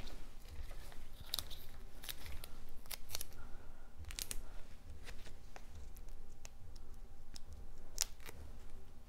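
Foam tape squares and cardstock being handled, peeled and pressed together by hand, making scattered sharp clicks and crinkles at irregular moments, the strongest about four and eight seconds in.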